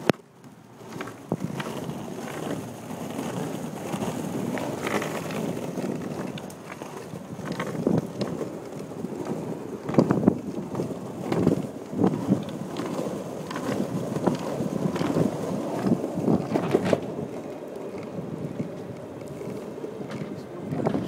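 Longboard wheels rolling over pavement: a steady rumble with scattered knocks and clacks, most between about eight and seventeen seconds in, and wind on the microphone.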